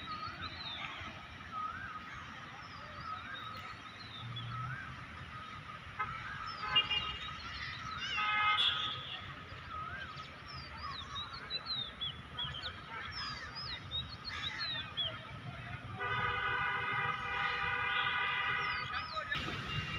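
Small birds chirping all through, with two short horn-like honks about seven and eight and a half seconds in. A long steady horn blast of about three and a half seconds comes near the end.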